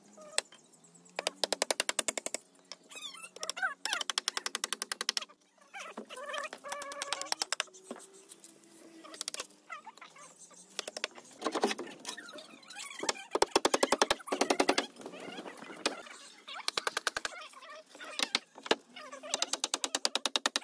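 Claw hammer striking nails into the wooden planks of countertop formwork, in very rapid runs of blows about a second long, again and again with short pauses between.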